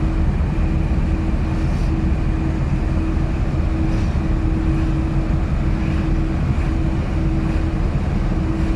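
Moskvich 412 cruising on a winter road, heard from inside the cabin: a steady engine and road rumble with a constant drone through it. The drone is the hum ("воет", "гудит") of the car's "snezhinka", which the occupants find audible but tolerable.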